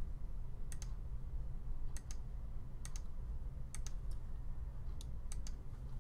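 Computer mouse button clicking, each click a quick press-and-release pair, about once a second as points are placed one after another. A steady low hum runs underneath.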